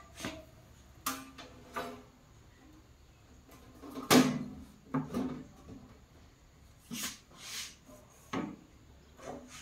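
Irregular knocks and clunks, about ten in all, some with a short dull ring. The loudest comes about four seconds in.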